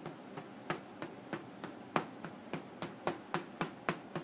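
Paint applicator dabbed repeatedly onto a board, laying on bronze accent paint: a quick, uneven run of taps, about three or four a second.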